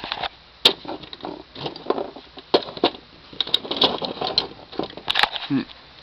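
Irregular handling noise: scattered clicks, taps and rustles, with a few sharp clicks.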